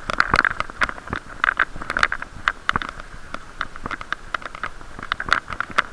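Irregular clicks and knocks, several a second, over a steady muffled hum: a camera sealed in a waterproof case on a riding cyclist's chest, picking up the case knocking and rubbing as he rides, which badly muffles and distorts the sound.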